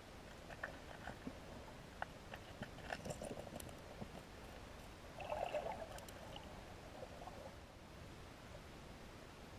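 Underwater river ambience picked up by a submerged camera: a faint steady hiss with scattered small clicks and ticks, and a brief louder rustle about five seconds in.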